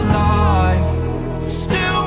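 Background music: a song with band accompaniment and a strong bass line. A held note glides down in the first second, and a cymbal-like splash comes near the end.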